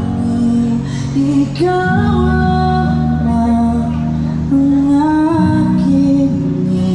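A man singing into a microphone, amplified through a portable speaker over an instrumental backing, holding long notes.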